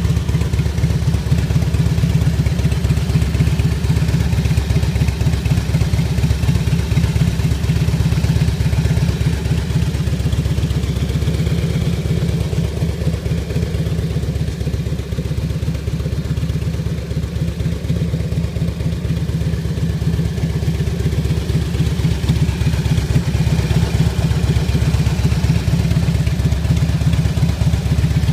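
Harley-Davidson Street Glide's V-twin idling steadily through Bassani Boom Cans exhaust, a deep, loud, lumpy beat of firing pulses. It dips slightly in loudness midway.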